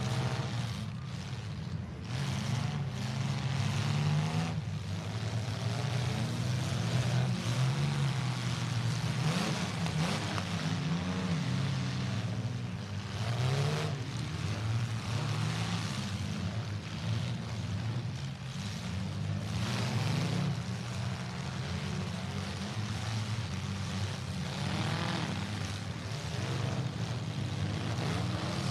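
Compact demolition derby cars' engines running and revving hard, pitch rising and falling as drivers work the throttle.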